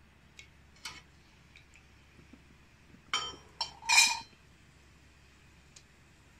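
A slotted metal frying spoon clinking against a metal kadhai. There are a few light taps in the first two seconds, then two louder ringing clanks about three and four seconds in.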